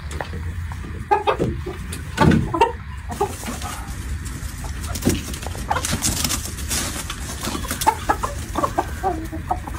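Domestic chickens clucking, several short clucks in clusters, over a steady low rumble.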